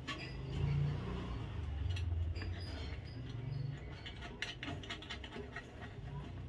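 Light handling noise and a run of small sharp clicks, about four and a half to five and a half seconds in, as a wire is fastened to the terminal of a room heater's heating rod.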